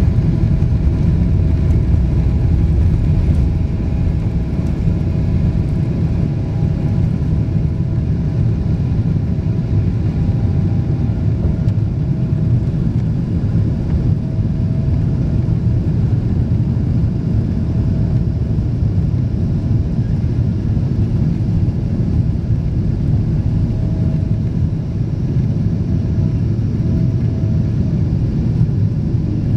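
Jet airliner's engines at takeoff power, heard from inside the cabin during the takeoff roll and climb-out: a loud, steady low roar, with a faint tone above it that comes and goes.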